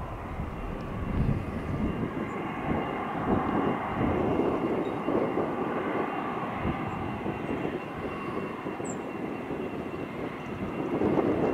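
Embraer KC-390's two IAE V2500 turbofan engines at taxi power as the aircraft rolls toward the microphone: a steady rushing hum with a thin high whine over it, growing a little louder near the end.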